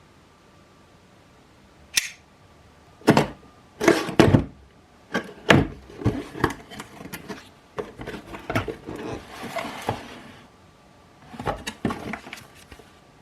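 Unboxing by hand: a run of knocks and thuds as a boxed product and its parts are handled and set down, with a stretch of rustling packaging in the middle.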